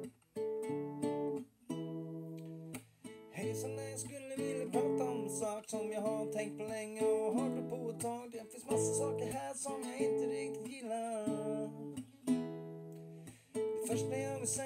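Nylon-string classical guitar playing strummed chords. From about four seconds in, a man's singing voice comes in over the guitar.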